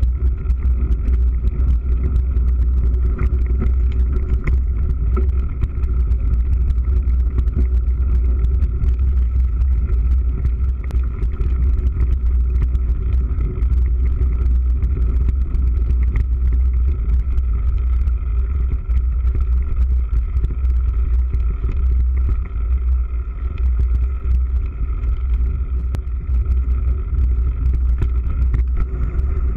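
Mountain bike riding over a bumpy grass and dirt farm track, heard through a GoPro camera: a steady low rumble of wind and ride vibration with many small rattles and knocks.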